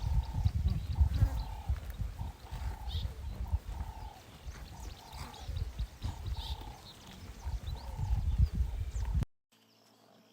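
An animal calling over and over, short even notes about once a second, over a loud low rumble. The sound cuts off suddenly near the end.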